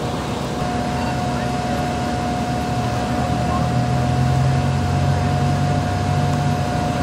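Fire engine running steadily, a constant mechanical drone with a steady whine over it. A deeper hum swells about halfway through and eases near the end.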